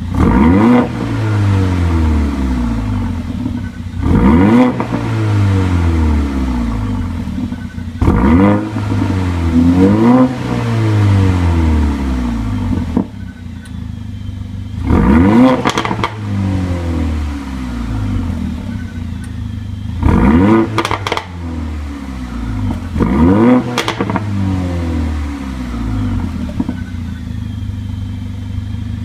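2014 Mercedes-Benz CLA 45 AMG's turbocharged 2.0-litre four-cylinder engine, heard at the exhaust tips, free-revved at a standstill. There is a series of sharp throttle blips, some in quick pairs, each climbing fast and falling back to idle over a couple of seconds.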